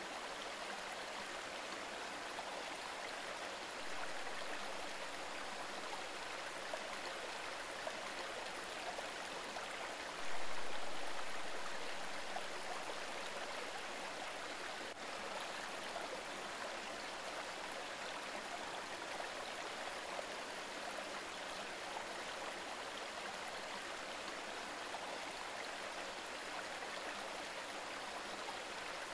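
River current flowing steadily. About ten seconds in there is a sudden rise in level that fades away over a couple of seconds.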